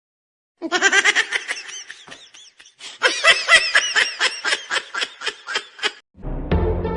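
A person laughing in two long runs of quick, high-pitched giggles, with a short break about three seconds in. Music starts near the end.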